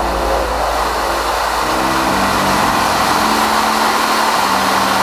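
Corsair F4U-4's radial engine and rushing airflow heard inside the cockpit in flight: a loud, steady roar with a low drone underneath.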